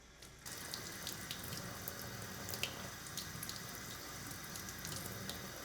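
A tap running steadily, starting about half a second in, with water splashing over an activated carbon filter cartridge being rinsed under it, and small scattered drip-like ticks.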